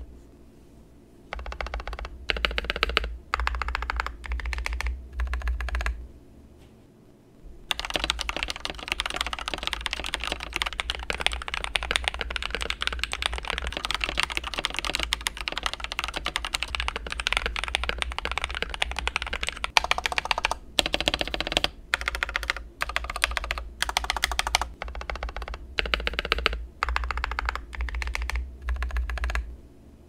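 Typing on a TM680 mechanical keyboard with an aluminium plate, Akko CS Rose Red linear switches and Cherry-profile keycaps: fast runs of keystrokes in several bursts, with one long unbroken stretch through the middle. The board is heard both in its stock form and modded, with lubed switches, Holee-modded stabilizers, foam and tape mods.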